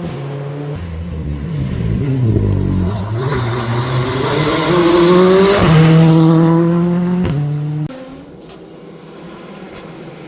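Proton IRIZ R5 rally car's turbocharged four-cylinder engine at full throttle, getting louder as the car approaches, the pitch climbing and stepping with gear changes. About eight seconds in the sound drops suddenly to a quieter, steady engine note.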